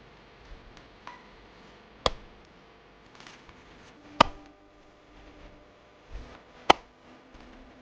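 Digging hoe chopping into stony ground: three sharp strikes about two seconds apart, with smaller scrapes and clicks of soil and stones between them.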